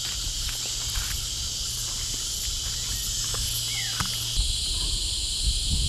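Steady high-pitched drone of insects in dry scrub forest, shifting in tone about four and a half seconds in, with a short falling chirp just before that and a few faint clicks.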